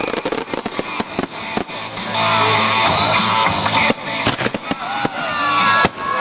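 Aerial firework shells bursting: a quick run of sharp bangs and crackle in the first two seconds, then scattered bangs through the rest, over music and a steady low hum.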